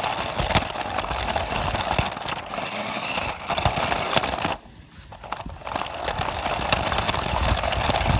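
A toy RC car's small electric motor and gears running with a rattling buzz and scattered clicks. It cuts out briefly about halfway through, then starts again.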